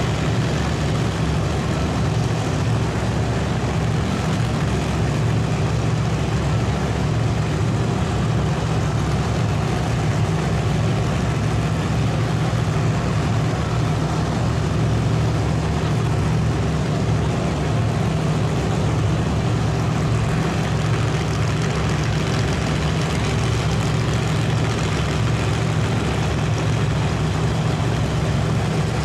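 Drag race car engines idling at the starting line: a steady, loud, low-pitched running with no revving.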